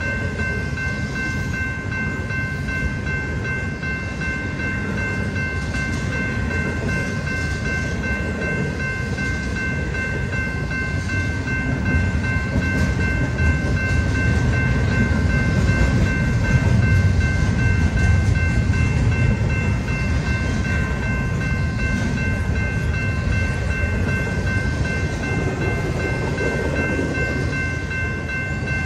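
Intermodal freight train passing close by at a grade crossing: a steady rumble and clatter of wheels on rails, swelling louder in the middle and easing off again. Several steady high ringing tones hold at fixed pitches throughout.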